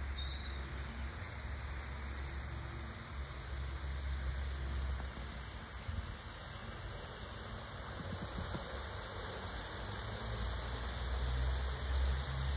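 Garden ambience: a low wind rumble on the microphone, with a small bird repeating a short high chirp about twice a second and a couple of faint falling calls.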